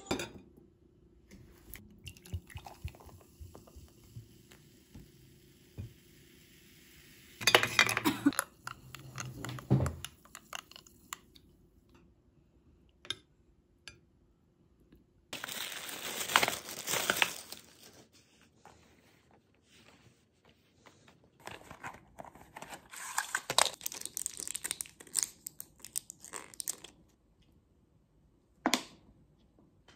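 Intermittent eating and tableware sounds in a quiet room: a metal spoon clicking and scraping in a ceramic bowl, with several short bursts of crinkling.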